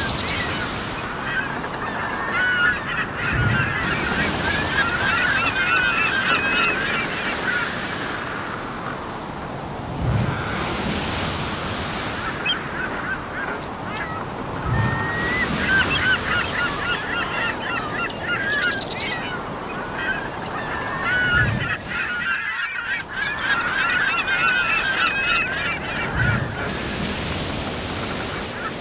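Many birds calling at once, dense overlapping calls that come in bouts, with a soft low thump every five seconds or so.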